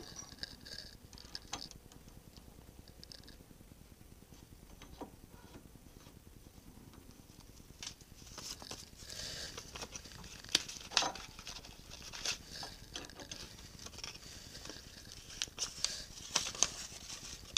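A sheet of printer paper being handled, folded and rustled by hand, with scattered light clicks. It is quiet for the first half, and the rustling starts about halfway in.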